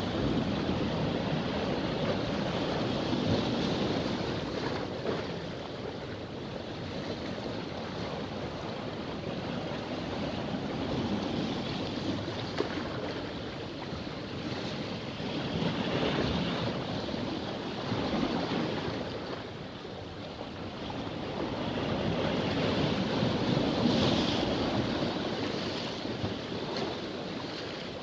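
Sea surf breaking and washing around shoreline rocks, swelling and easing in slow surges every several seconds, with wind buffeting the microphone.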